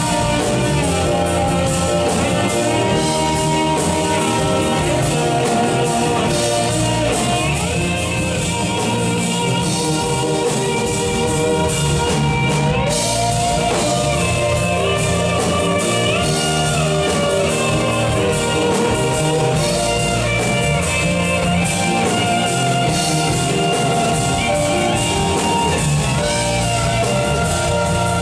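Live rock band playing, with an electric guitar lead full of bent notes over drum kit and rhythm guitars, recorded on a camera's microphone from the audience.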